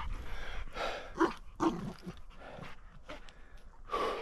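A hunting dog panting, a few short, irregular breaths with faint whines.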